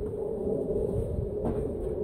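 Craftsman garden tractor's engine running steadily with a low rumble.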